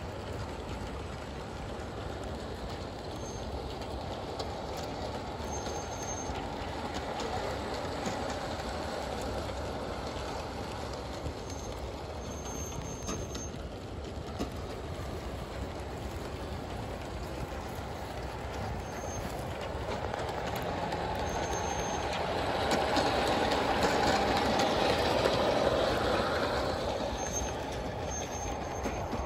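Garden-scale model train running on an outdoor track: a steady rolling and running sound from the locomotive and its wagons on the rails. It grows louder for a few seconds about three-quarters of the way through.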